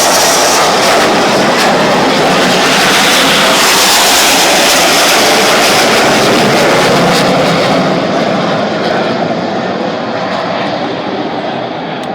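Red Arrows BAE Hawk T1 jets taking off: a loud, steady jet-engine roar that begins to fade about eight seconds in as the aircraft climb away.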